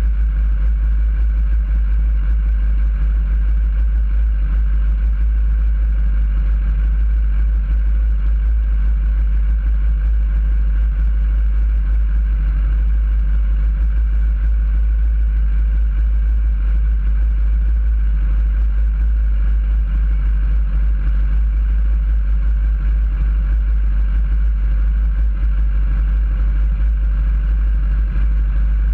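Sport motorcycle engine idling steadily, with a deep rumble and no revving, picked up by a camera mounted on the bike's handlebars; the engines of other waiting bikes idle around it.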